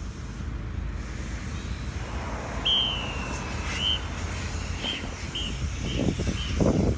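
A marching-band whistle count-off: one long blast that sags slightly in pitch, then four short blasts about half a second apart. Low thumps near the end as the marchers step off, over a steady wind rumble.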